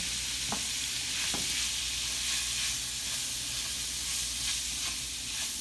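Steak, garlic and onions sizzling in a hot frying pan as they are stir-fried, with a few light clicks of the utensil against the pan.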